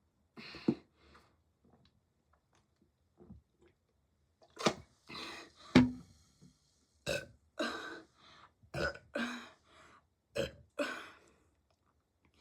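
A young person burping over and over: one short burp near the start, then a quick string of about ten short burps in the second half, the loudest about halfway through.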